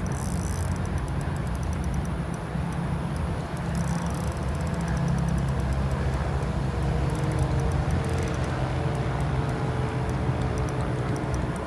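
Steady low rumble of outdoor background noise, with no single sound standing out.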